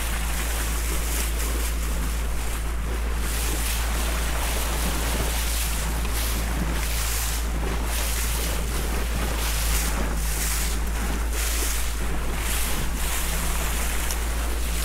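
Small motor boat under way: a steady engine hum under water rushing along the bow, with repeated splashes every second or so, and wind buffeting the microphone.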